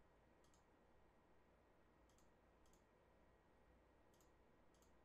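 Near silence with five faint, short computer mouse clicks spread through it.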